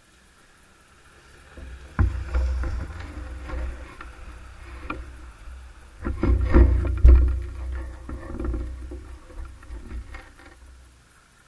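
Low rumbling buffeting on the microphone with scattered knocks and clicks during a fixed-gear bicycle ride. It comes in suddenly about two seconds in, surges again around six to seven seconds, and dies away near the end.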